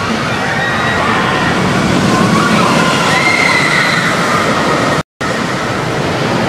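Wicked Twister roller coaster train running on its track, a steady rushing rumble with a wavering high whine over it that rises about three seconds in. The audio drops out briefly about five seconds in.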